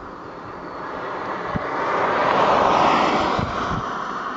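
Red Arrows' BAE Hawk jets flying past, a rushing jet noise that swells to a peak about two and a half seconds in and then fades.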